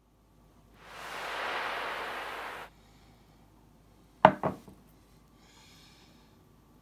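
A porcelain plate set down on a wooden table: two quick knocks about four seconds in, the loudest sound here. Earlier, a soft hiss lasts about two seconds.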